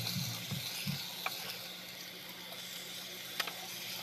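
Chicken pieces sizzling in hot oil in a nonstick frying pan while a wooden spatula stirs them, with a few sharp clicks, the loudest about three and a half seconds in.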